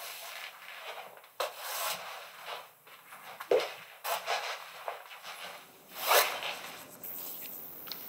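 Paint being scraped and brushed across a canvas in a series of separate rubbing strokes, the loudest about six seconds in. Near the end it gives way to a steady faint hiss with a thin high whine.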